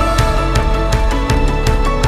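Background music with a steady beat: sustained melodic notes over regular percussion hits.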